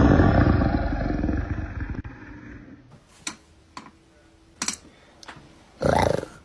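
A big cat's roar, loudest at the start and fading away over about two seconds. A few sharp clicks follow in the quieter stretch, and a short low burst of sound comes near the end.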